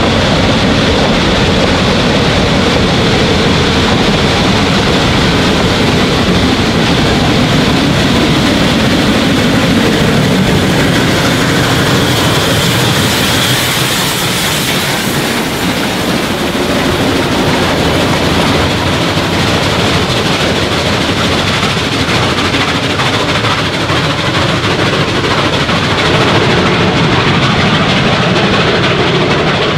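Shay geared steam locomotive working up a mountain grade: a loud, steady mix of engine running, exhaust and running gear on the track.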